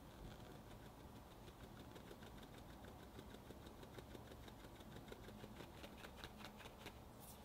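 Fine-mesh sieve tapped rapidly by hand while sifting cocoa powder: a fast, even run of light ticks, several a second, getting louder toward the end, followed by a brief hiss.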